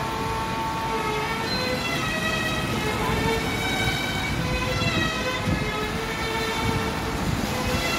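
Background music: a melody of held notes that step from pitch to pitch.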